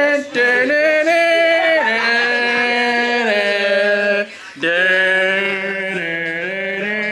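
A man's voice singing long held notes in a celebratory way, stepping from one pitch to the next, with a short break about four seconds in.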